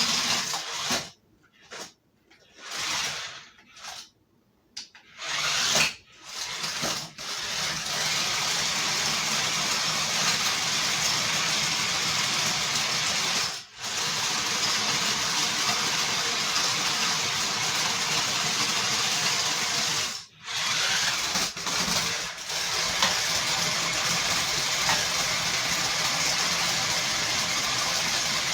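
Toy RC stunt car's small electric drive motors whirring. They start and stop in short bursts several times during the first few seconds, then run almost continuously with a few brief cuts.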